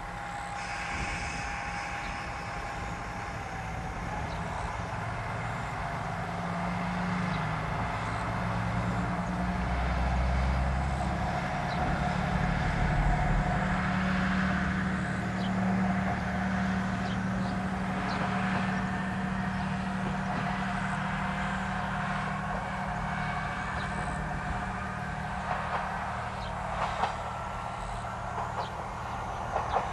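Single-car KiHa 120 diesel railcar pulling away from a station: its diesel engine climbs in pitch and runs under load as the car accelerates, loudest a third of the way in, then carries on a little quieter as it draws away.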